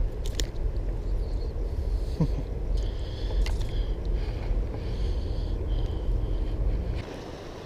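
Steady low outdoor rumble with a few faint high chirps over it; the rumble drops away abruptly near the end.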